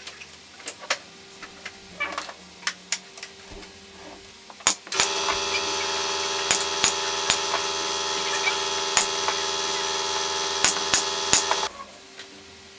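Light taps and clicks of wooden pieces being handled. Then a battery-powered nailer's motor whirs steadily for about six seconds while it fires nails into the wooden box, each one a sharp crack, about nine in all. The motor stops abruptly shortly before the end.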